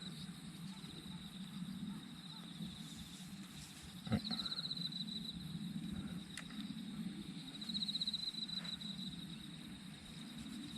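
An insect trilling high and fast in repeated bouts of about a second and a half, over a steady low hum, with a single sharp knock about four seconds in.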